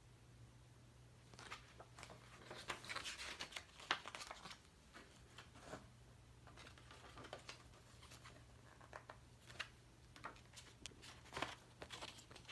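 Paper pages of a small paperback poster book being handled and turned, rustling and flicking softly. There is a spell of rustling about a second and a half in, a few single flicks, and more page-turning near the end.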